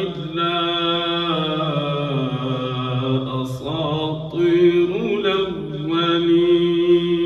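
A man's voice chanting Quran recitation in a slow melodic line. He holds long drawn-out notes that step down in pitch, breaks and wavers briefly about halfway, then rises and settles on a long held note near the end.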